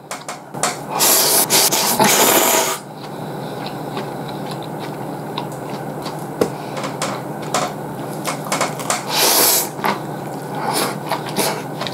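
Ramen noodles being slurped into the mouth: a long slurp of about two seconds near the start and another shorter one near the end, with chewing and small wet mouth clicks in between.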